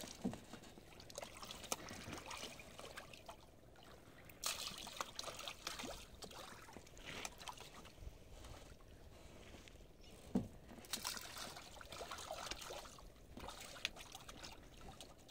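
Faint, irregular splashing at the water surface as Asian seabass (koduva) in a sea cage strike at feed thrown in by hand, during feeding.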